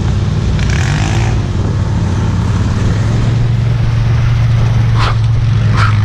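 ATV engine idling steadily at a constant low pitch.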